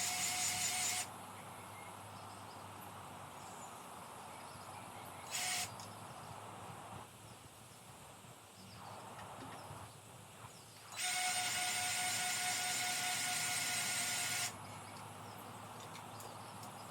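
Battery-powered grease gun's motor whining in short runs as grease is pumped into the baler's fittings. A run stops about a second in, a brief blip comes about five seconds in, and a longer run of about three and a half seconds follows past the middle.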